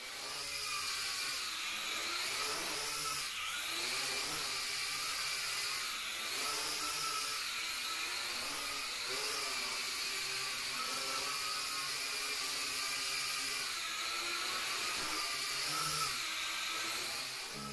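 Small quadcopter drone's motors and propellers whining steadily, the pitch dipping and climbing back every few seconds as the motor speed changes.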